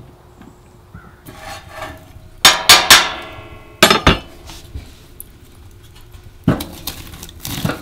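Metal clanking and knocking at an open wood stove: a run of ringing clanks about two and a half seconds in and a hard knock near four seconds, then duller knocks as a split log is put in on the embers.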